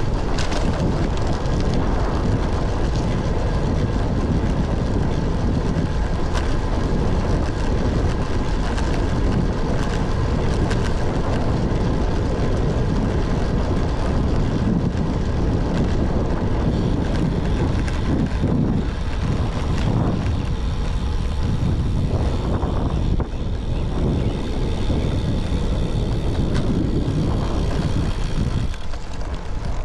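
Steady wind rush over an action camera's microphone while riding a road bike, a constant low rumble.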